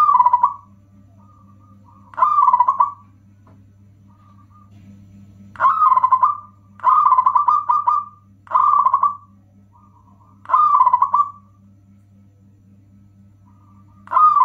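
Zebra dove (perkutut) cooing: six loud phrases of rapid, rolling coos a few seconds apart, another starting right at the end. A steady low hum runs beneath.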